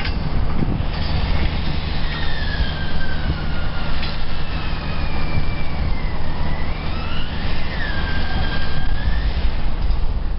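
A passing vehicle: steady low rumble with a high whine that slides slowly down in pitch and then back up before fading near the end.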